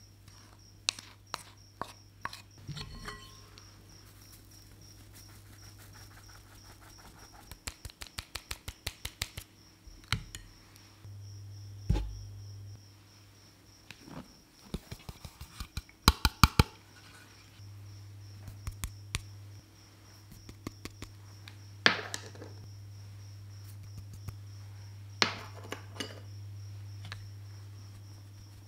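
Metal mesh sieve being tapped and shaken over a glass bowl to sift flour and cocoa powder. Runs of quick light ticks alternate with a few sharper single knocks, over a faint steady hum.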